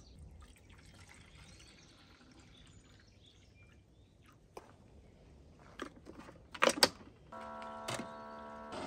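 Faint trickle of water poured into a single-serve Keurig coffee maker, then a few sharp clacks, two of them loud, and the machine starting with a steady pitched hum about seven seconds in.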